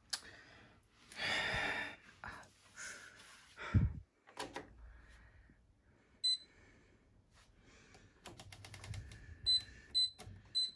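Handling sounds at a front-loading washing machine: a short hissing rustle, a dull thump, then a series of clicks and a few short high beeps, typical of closing the detergent drawer and setting the programme.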